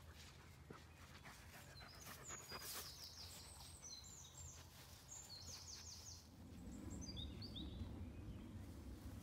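A small songbird sings a run of quick, high, chirping notes through the middle of the clip, over faint rustling in long grass. A low rumble builds near the end.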